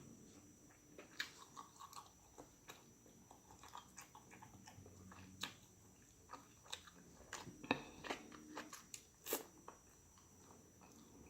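A person chewing food close to the microphone, with scattered short clicks and smacks of the mouth. The loudest click comes about nine seconds in.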